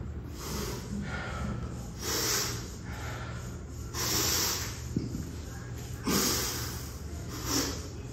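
A man's heavy, forceful breathing through effort: about five sharp, noisy breaths, one every one and a half to two seconds, as he sets up and lifts a pair of kettlebells. A single short click comes about five seconds in.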